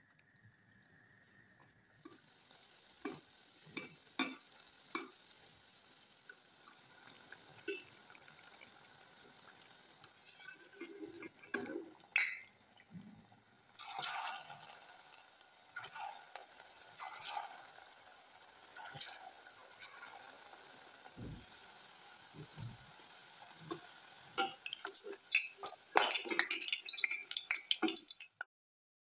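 Churro dough frying in hot oil: a steady sizzle starts about two seconds in, with scattered clicks and knocks of a utensil against the pan. The knocks get busier near the end, then all sound cuts off suddenly.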